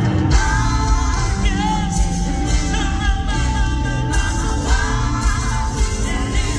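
Live pop song played over a concert hall's sound system, with male vocals singing over a steady band backing and bass.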